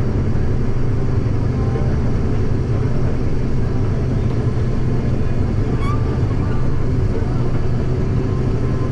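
Steady low engine drone of a running vehicle, even and unchanging throughout.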